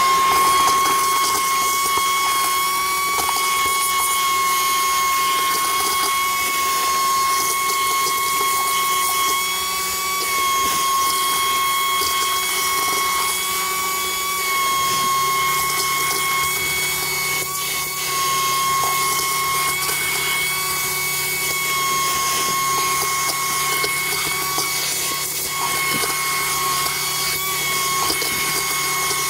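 Vacuum cleaner running steadily with a constant whine, its hose sucking up loose rust flakes and debris from a rusted-out generator drip pan.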